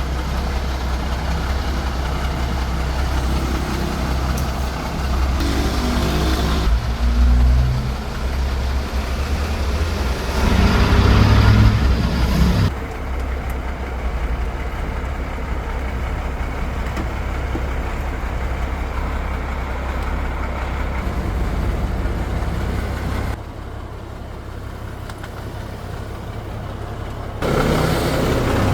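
Steady low rumble like an idling engine, with the higher background noise changing abruptly several times.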